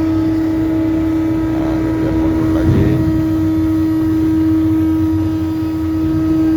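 Heavy machinery running with a steady, loud drone that holds one constant pitch, with faint voices briefly in the background about two to three seconds in.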